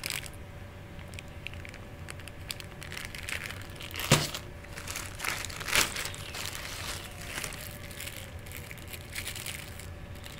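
Clear plastic bags crinkling and rustling as they are handled, with scattered crackles and two louder crinkles about four and six seconds in.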